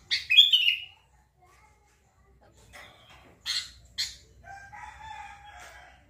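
Sooty-headed bulbul (kutilang) calls: a loud burst of quick falling chirps at the start and two sharp, high notes around the middle.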